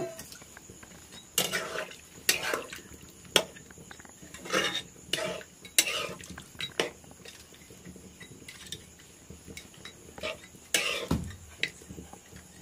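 A metal spatula scraping and clinking against a metal kadhai while stirring a watery curry. The strokes come in irregular bursts about a second apart, with a quieter gap of a few seconds before two more strokes near the end.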